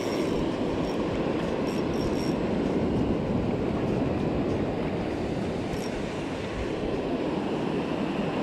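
Steady rushing noise of ocean surf, waves breaking and water washing up over the sand.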